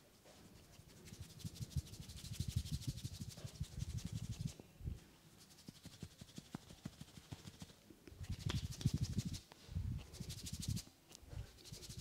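Hands rubbing and kneading skin during a neck massage, recorded close to the microphone: dense skin-on-skin friction crackle with soft low thuds, in two stretches of a few seconds each.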